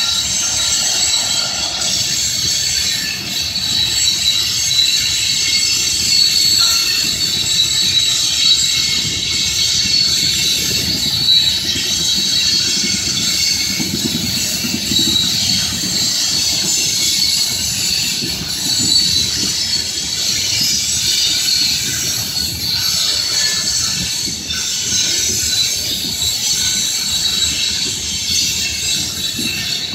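Freight unit train of covered hopper cars rolling past, its wheels squealing steadily and high-pitched on the curving track over a low rumble of wheels on rail.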